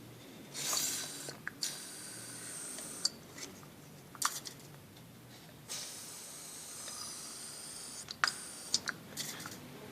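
Aerosol spray can of WD-40-type spray hissing in two bursts, about half a second in and again near six seconds, with sharp clicks and knocks between. It is being sprayed onto the inner side of a damp alternator belt to stop the belt squeal.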